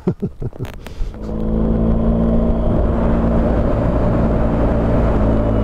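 BMW R1250 GS Adventure's boxer-twin engine starting about a second in, after a few clicks and knocks, then idling steadily.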